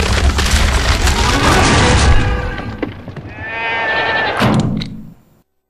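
Dance music with a heavy beat that breaks off about two seconds in, followed by one long sheep bleat.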